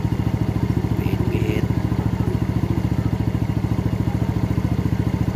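Yamaha Mio Soulty scooter's single-cylinder four-stroke engine idling steadily with an even beat, held at a raised idle by the carburetor's idle-speed (minor) screw while the air-fuel mixture screw is tuned for the highest rpm.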